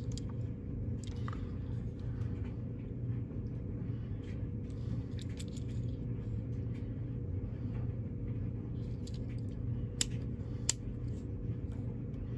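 Fingers handling a small diecast toy car, with light rustles and taps over a steady low hum. About ten seconds in come two sharp clicks less than a second apart, fitting the car's two opening doors snapping shut.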